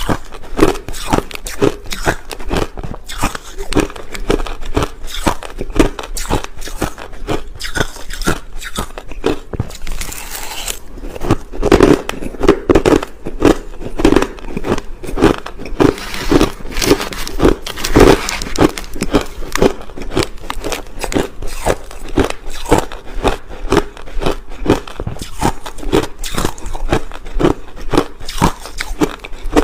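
Crushed ice being bitten and chewed: a continuous run of loud, crackling crunches, several a second.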